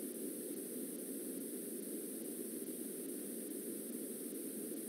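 Steady hiss and static of a video call's audio feed, with no speech: only the line's background noise.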